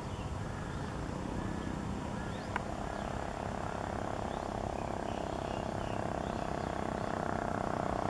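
Distant Boeing 777-200ER's Rolls-Royce Trent 892 jet engines at takeoff power as the airliner begins its takeoff roll: a low rumble with a steady whine that comes in about two and a half seconds in and grows louder.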